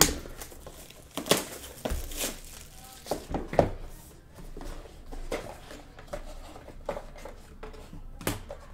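Cardboard trading-card hobby boxes being handled: a string of sharp taps, scrapes and crinkles as boxes are slid off a stack and picked up.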